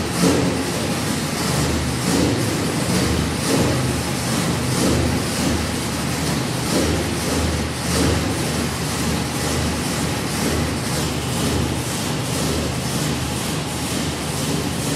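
2010 Chevrolet Camaro engine running on a chassis dyno at a steady low speed, its low rumble pulsing about once a second.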